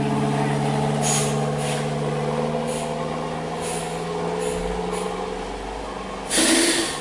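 A heavy box truck's diesel engine running steadily as it climbs a steep wet bend, with several short air hisses. Near the end a loud burst of air brake hiss.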